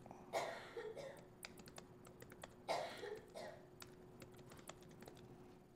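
Typing on a MacBook Air keyboard: quick, light key clicks as commands are entered. A faint steady hum runs underneath, and there are two short, louder sounds, about half a second and nearly three seconds in.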